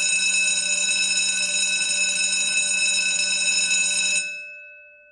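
Electric school bell ringing continuously, its clapper rattling against the gong. It cuts off a little after four seconds in, and the bell's tone dies away.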